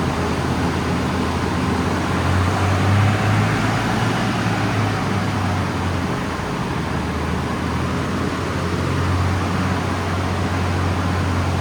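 A car driving along: a steady low engine drone under road and tyre noise, swelling slightly a few seconds in.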